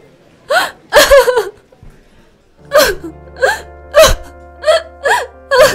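A woman's voice sobbing in short, gasping bursts, with a pause in the middle. Background music with held notes comes in about halfway through.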